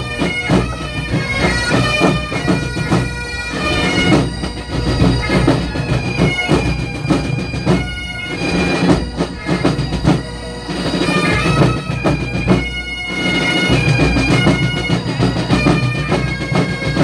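Pipe and drum band playing: Great Highland bagpipes carry a melody over their steady drones, with snare and bass drums beating along.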